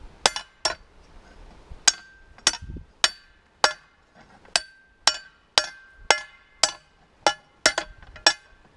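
Hammer blows on a hot steel motor-shaft rod being forged straight: about fourteen sharp, ringing metallic strikes at roughly two a second, with a short pause after the first two.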